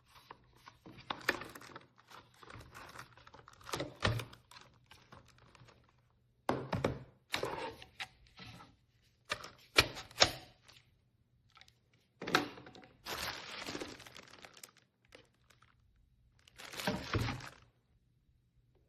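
Handling noises: a series of irregular thunks, knocks and clicks with short rustling stretches in between. No motor is running.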